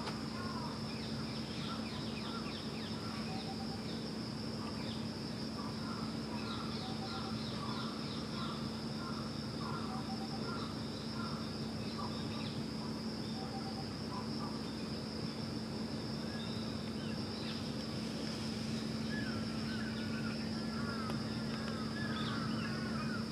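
Steady high-pitched insect drone, with short runs of chirps coming and going over it and a low steady hum beneath.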